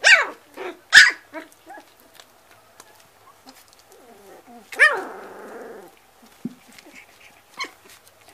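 White puli puppies yipping: a few sharp high yips in the first two seconds, then one more about five seconds in that trails off into a short rough tail. Faint small clicks follow near the end.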